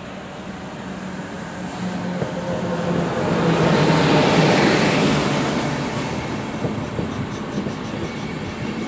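NS class 1700 electric locomotive hauling intercity coaches past along a station platform: a low hum that grows loudest as the locomotive draws level about four seconds in. The coaches then roll by with their wheels clicking over the rail joints.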